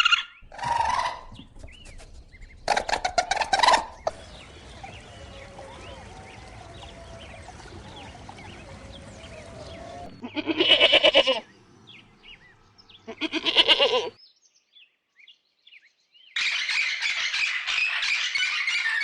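A series of loud, pitched animal calls a few seconds apart, with faint bird chirps in the quieter stretches between them. A dense, busy sound starts in a new segment near the end.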